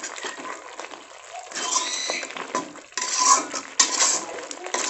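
A metal spatula scraping and stirring thick masala gravy around an aluminium kadai, mixing in chilli powder. The strokes are soft at first, then louder scraping with a faint metallic ring from about a second and a half in.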